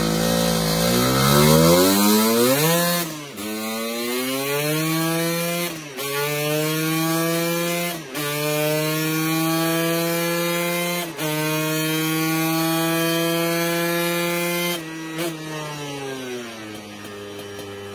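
Casa Performance SSR265 two-stroke Lambretta engine with an expansion-chamber exhaust, run hard on a rolling-road dyno. The note climbs steeply in pitch over the first three seconds and cuts off sharply. It then holds high revs, with the note dropping out for an instant several times, and winds down over the last couple of seconds.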